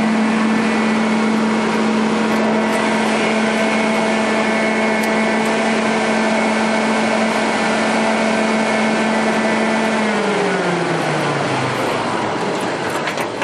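Propane-fired Onan 30 kW generator set running steadily, then shut off about ten seconds in: the engine's hum falls in pitch over about two seconds as it winds down to a stop. A couple of clicks come near the end.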